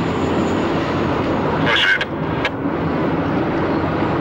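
Engine and road noise of a moving car, heard from inside the cabin. A short, higher burst a little under two seconds in, and a couple of clicks.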